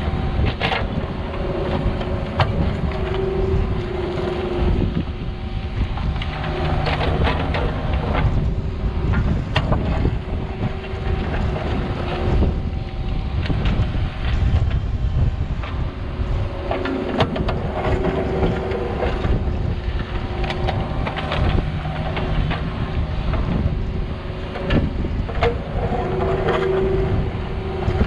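Cat 304 mini excavator's diesel engine running, its note swelling several times as the hydraulics take load, with scattered knocks. Wind buffets the microphone.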